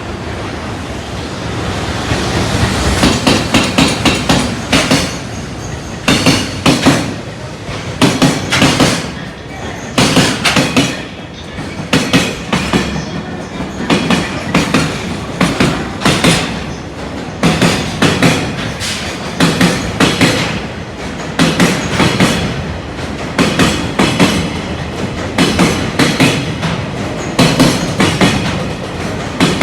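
Wheels of a freight train's container wagons pounding over rail joints as the train passes, a very loud clickety-clack. The wheel clacks come in groups about every two seconds over a steady rolling rumble, which builds up over the first two seconds.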